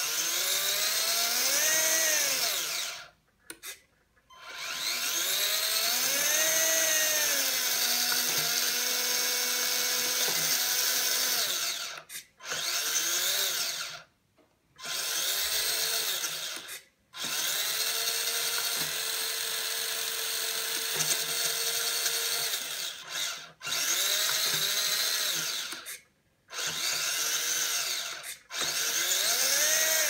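Tamiya Bruiser RC truck's electric motor and three-speed gearbox whining under throttle, the pitch rising and falling in arcs and sometimes held steady, in runs of a few seconds broken by short stops.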